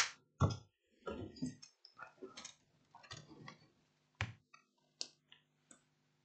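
A few light clicks and taps from handling at the workbench, the sharpest at the start and another about four seconds in, over a faint low hum.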